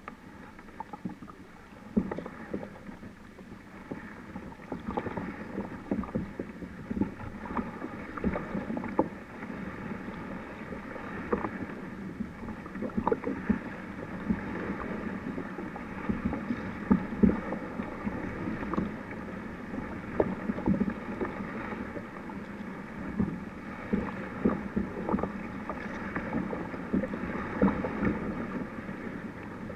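Kayak moving through a dense bed of water lily pads: paddle splashes and water trickling, with many irregular small knocks and rustles as the pads brush against the hull.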